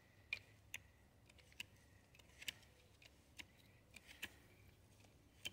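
Faint sharp clicks about once a second from a hydraulic hand crimping tool being worked on a heavy battery cable lug.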